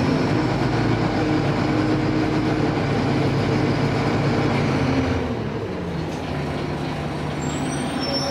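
Heuliez GX 317 city bus heard from inside, its engine running steadily under way. About five seconds in, the engine note falls and quietens as the bus eases off.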